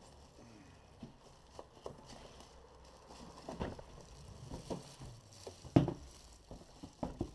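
Unboxing handling noise: a plastic-wrapped bread machine is lifted out of a cardboard box, with plastic rustling and scattered knocks of the machine and box. The knocks come more often in the second half, and the loudest thump falls late on.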